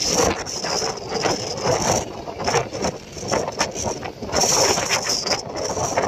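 Loud, gusty rushing of wind on the microphone mixed with breaking surf, crackling and swelling unevenly.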